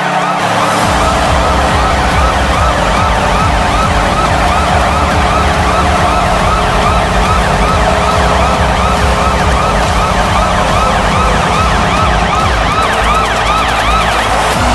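Washington Capitals goal horn blowing a long steady blast in the arena, with the goal song's dance track starting about a second in: a pounding bass beat under rapid, repeating siren-like synth sweeps.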